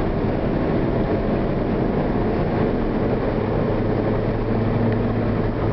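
Car engine and road noise heard from inside the moving car's cabin: a steady drone with a low engine hum that grows a little stronger about four seconds in.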